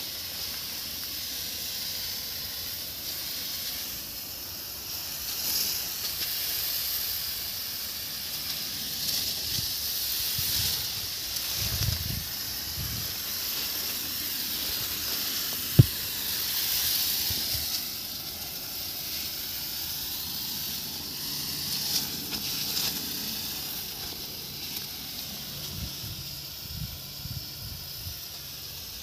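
Pesticide spray hissing from a tractor-driven sprayer, a steady high hiss that swells and fades. A single sharp knock about 16 s in, and a faint low hum joins near the end.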